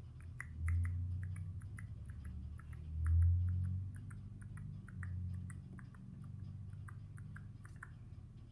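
A quick, irregular run of small, sharp clicks while plastic toy horses are handled, with dull low thumps about half a second, three seconds and five seconds in.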